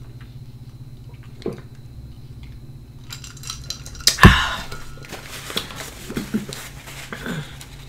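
Sipping from a ceramic mug, then the mug set down on the table with a knock about four seconds in, the loudest sound here. A paper napkin rustles against the mouth afterwards.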